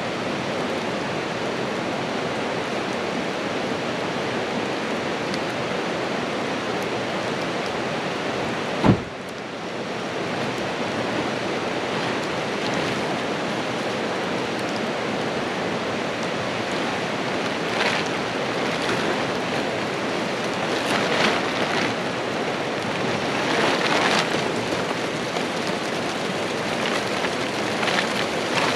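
Steady rain falling, with a single sharp knock about nine seconds in. The rain grows heavier, with louder drops striking a surface in the last ten seconds.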